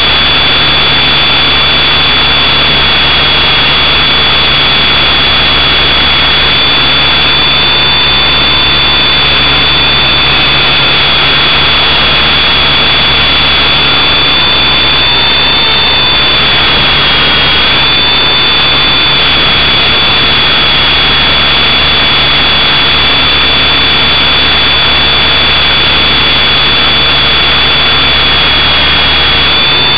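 Loud, steady hiss with two high-pitched whines running through it; the whines waver and dip in pitch about halfway through.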